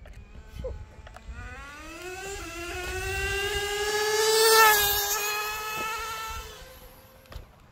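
Traxxas 4-Tec nitro RC car's small glow-fuel engine at full throttle on a speed run, a rising whine as it accelerates toward the listener. It is loudest about four and a half seconds in, where the pitch drops slightly as it passes, then fades as it speeds away.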